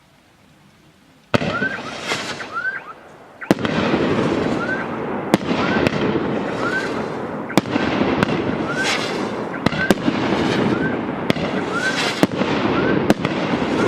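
Consumer fireworks cake (TKB519 'Fairy Dream') firing. It starts abruptly about a second in, then keeps up a dense hiss between sharp bangs roughly every second, many shots carrying a short rising whistle.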